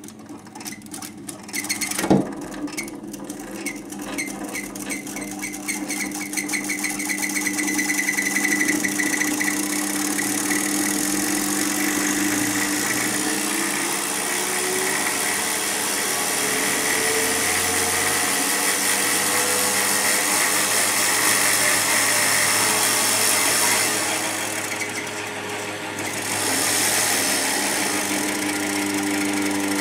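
Homemade cream separator driven by a washing-machine motor spinning up: a quick ticking that speeds up over the first few seconds and grows louder, then steady running, with a brief dip in level near the end.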